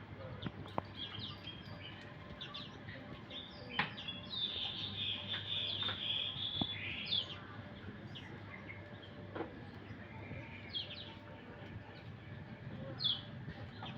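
Small caged songbirds chirping and twittering high-pitched, with one longer trilling song phrase a few seconds in, and a few sharp clicks between the calls.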